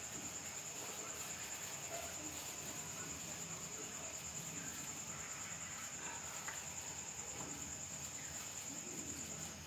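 Insects chirring in one steady, unbroken high-pitched trill.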